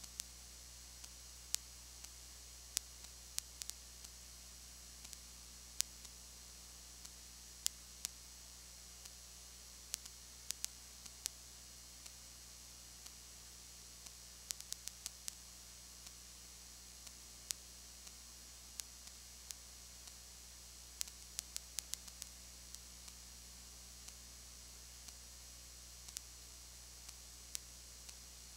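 Recording noise with no game sound: a steady low electrical hum and high hiss, broken by irregular sharp clicks scattered throughout, bunched around the middle and again about two-thirds of the way in.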